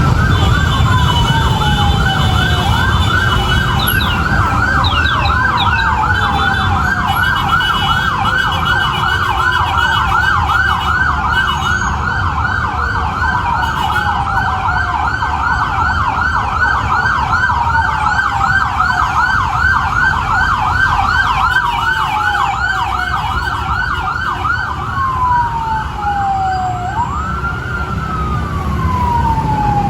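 Fire trucks' sirens sounding together: one in a slow wail that climbs quickly and falls away about every three seconds, another in a fast yelp that sweeps up and down several times a second. Steady engine rumble runs underneath.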